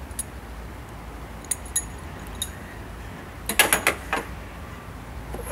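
Scattered light metallic clicks, then a short burst of clinking and rattling a little past halfway: a metal hand tool and car parts being handled in an engine bay.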